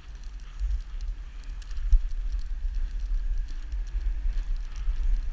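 A dogsled moving over a snowy trail behind a running dog team: a steady low rumble, a thump about two seconds in, and light, quick patter and clicks from the dogs' paws and harness.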